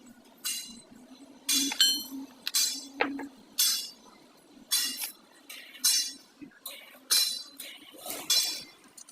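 Repeated sharp metal-on-metal strikes, one or two a second, each ringing briefly, like a hammer working metal parts.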